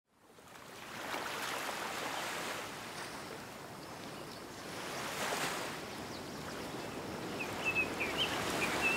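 Sea ambience: a soft hiss of waves fading in from silence, swelling about a second in and again around five seconds. A few short, high bird chirps come in near the end.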